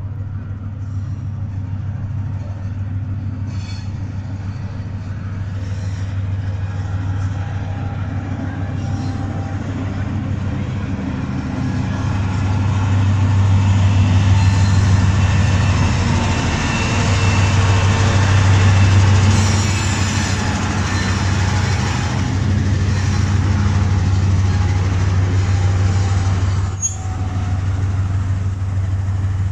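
Pakistan Railways RGE-20 diesel-electric locomotive pulling into a station with a passenger train. Its steady low engine drone grows louder from about halfway through as the locomotive passes close by, then the coaches roll past with a faint high wheel squeal on the curve.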